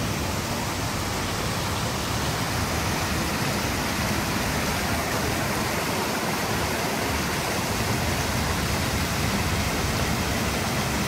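Water from a tiered stone fountain spilling over its basin rims and splashing into the pool below: a steady, even rush.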